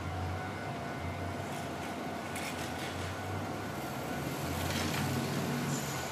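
Steady hum of street traffic, with a faint steady whine and a couple of brief light clatters.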